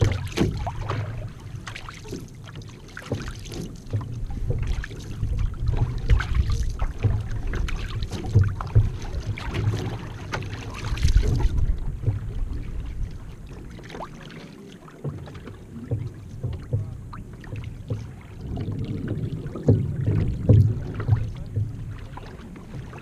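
Paddle strokes and water splashing and lapping along the hull of a one-person outrigger canoe under way, over a steady low rumble.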